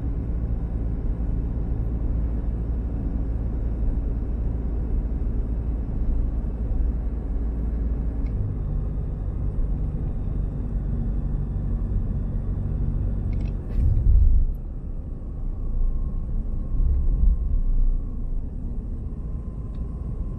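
Low, steady in-cabin rumble of a Chevrolet pickup's 2.8-litre Duramax four-cylinder turbodiesel and its tyres while driving, heard from down in the footwell. About two-thirds of the way through come a few clicks and a short thump, the loudest moment, after which the rumble runs lower and less even.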